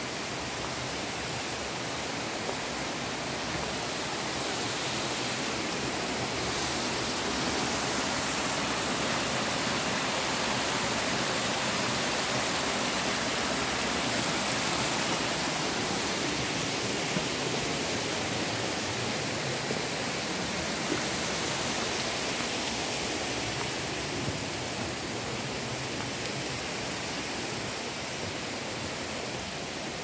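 Steady rush of flowing water from a creek or waterfall, an even hiss that swells a little partway through.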